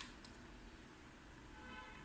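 Near silence: room tone, with a faint click shortly after the start.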